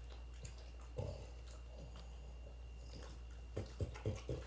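French bulldog eating strands of plain spaghetti from a hand, with faint eating sounds: one short sound about a second in, then a quick run of about five short mouth sounds near the end, over a steady low hum.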